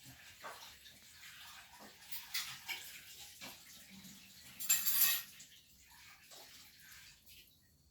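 Cat eating: soft wet chewing and licking clicks, with a louder short rustle about five seconds in.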